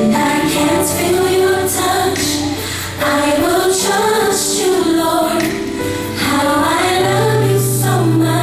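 Gospel song playing: female voices singing together over sustained low accompaniment notes, for the praise dance.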